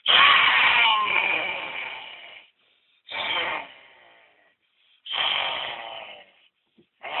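A boy making loud, raspy vocal noises in four bursts, the first long and fading, the others shorter.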